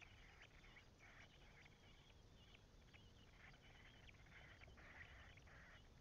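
Nestlings begging with faint, repeated high cheeps as a parent bird feeds them at the nest.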